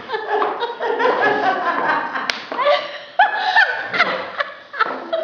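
People laughing and vocalizing, with one sharp slap about two seconds in.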